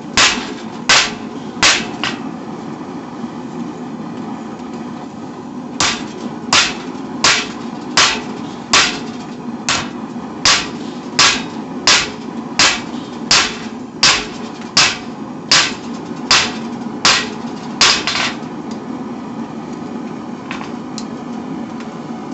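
Hand hammer striking hot steel on an anvil while forging a knife blank. A few blows, a pause of about four seconds, then a steady run of about eighteen blows, a little more than one a second, which stops near the end. Under it runs the steady hum of the forge.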